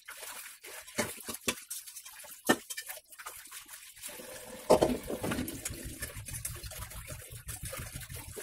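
Hand-washing metal pots and pans: scattered knocks and clanks of cookware, then a steady stream of tap water splashing into them from about halfway, with a louder clank as it starts.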